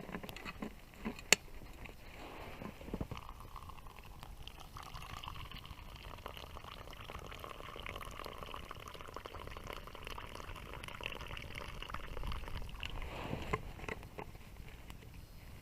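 Water in a pot over a campfire, hissing and bubbling steadily as it heats. A single sharp click sounds about a second in.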